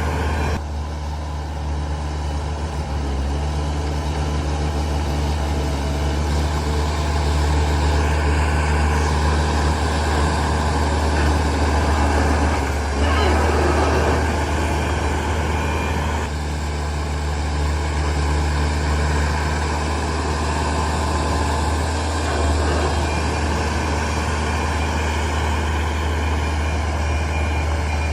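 Heavy diesel engine running steadily with a deep drone, with a brief louder rush of noise about halfway through.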